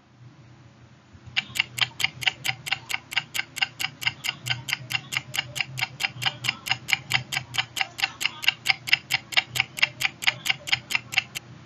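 Clock-ticking sound effect, an even run of sharp ticks about four a second, starting about a second and a half in and stopping just before the end: a countdown timer for answering the quiz question.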